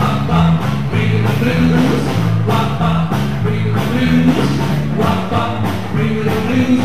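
Rock and roll music with a steady dance beat and a bass line stepping from note to note.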